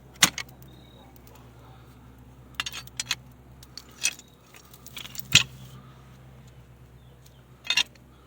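A scattering of light, sharp metallic clinks of metal tools and parts being handled during hub removal on a garden tractor's rear axle, the loudest about five seconds in, over a faint steady low hum.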